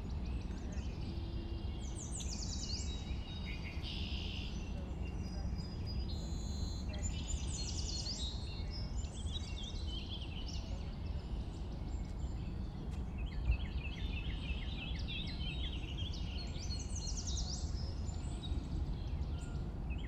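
Several small songbirds singing, with a quick run of repeated short notes in the last few seconds, over a steady low rumble of background noise.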